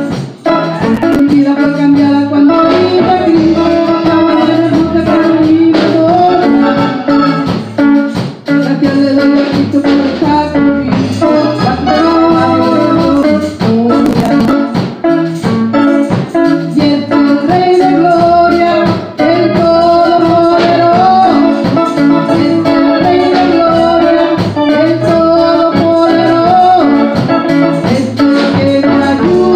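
Live church worship band playing a praise song: an electric keyboard with an organ sound holds long chords over a drum kit and electric guitar, with no clear words.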